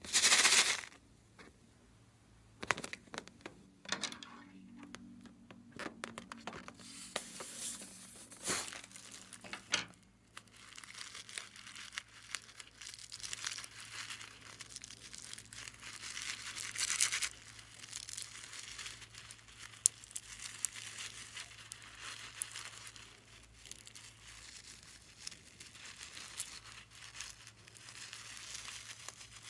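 Slime being worked by hand, giving sticky crackling with small pops and clicks, in irregular stretches. A loud crackling burst comes right at the start.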